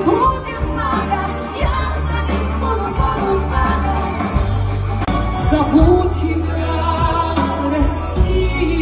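Live pop song: a woman singing lead over a full band of electric guitar, bass guitar and drums, heard from the audience through a concert hall's PA.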